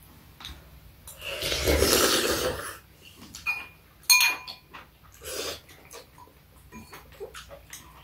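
A long slurp of soup sucked off a spoon, lasting about a second and a half. About halfway through, a spoon clinks against a ceramic bowl with a brief ring, and a shorter slurp follows.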